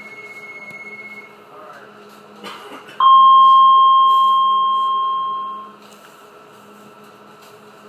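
A single loud electronic chime on board a Docklands Light Railway train standing at the platform: one clear two-note tone that starts suddenly and fades out over nearly three seconds, just after a short clunk. Before it, a steady high beep tone sounds for about the first second.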